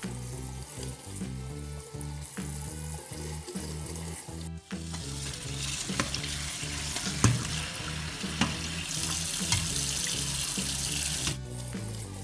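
Kitchen tap running and splashing onto napa cabbage pieces in a stainless mesh colander as the salted cabbage is rinsed and turned by hand, with a few sharp knocks and rustles of leaves. The water noise comes in loudly about five seconds in and stops abruptly near the end, over background music.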